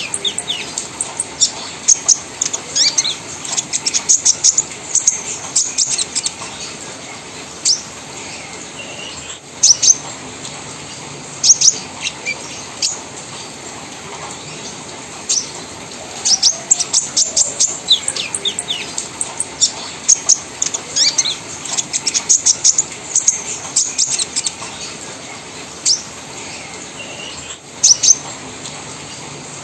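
Olive-backed sunbird (konin) singing bursts of rapid, very high, sharp chattering notes, the staccato 'trotol crewet' song that keepers play to prompt other konin to sing. The bursts come in fast clusters separated by short pauses.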